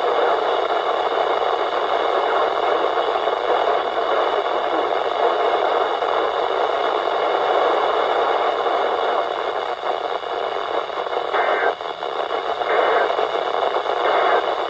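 Weather radio receiver hissing with steady static in a gap between broadcast messages, with a few brief flutters in the hiss near the end.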